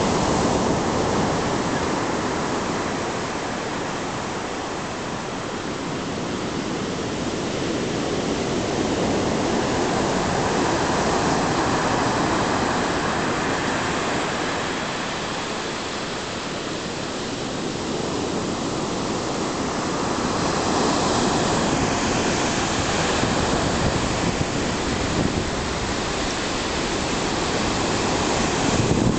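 Stormy Black Sea surf breaking on the shore: a continuous rush of waves that swells and eases about every ten seconds as the breakers come in.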